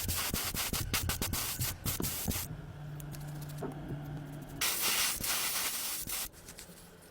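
Workshop sounds of car restoration: quick scraping or rubbing strokes, then a steady low motor hum for about two seconds, then a strong hiss like a spray gun or air blast that cuts off suddenly near the end.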